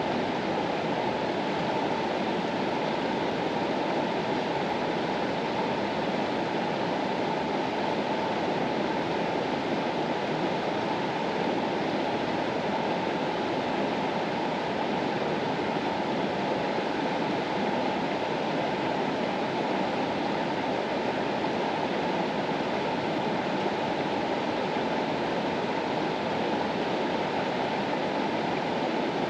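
Water of the Mastallone river flowing steadily: an even, deep rushing noise with no breaks or changes.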